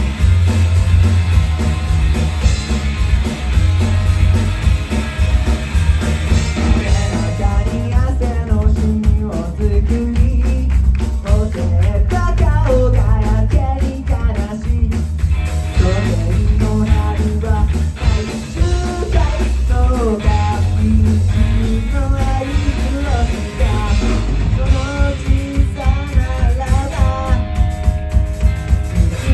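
Rock band playing a full-band passage without sung lyrics: drums and bass keep a steady beat under electric guitars. From about 8 seconds in, a lead melody bends and wavers over the band.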